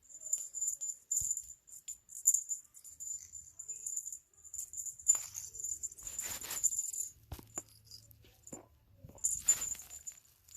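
A small bell on a cat toy jingling in irregular bursts as it is batted about, with louder rattling stretches around the middle and near the end.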